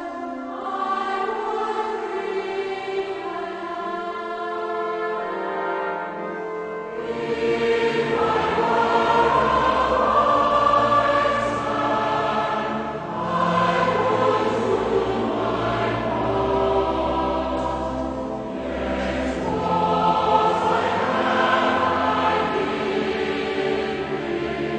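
A choir singing a Christmas carol with accompaniment, sparse at first and swelling to a fuller, louder sound with deeper notes from about seven seconds in.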